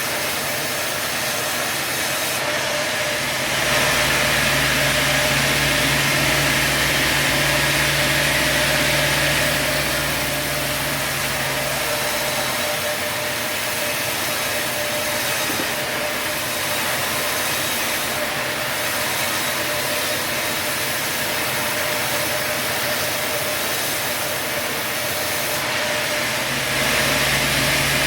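Sawmill machinery running steadily, with a louder, deeper stretch from about four to twelve seconds in and again near the end.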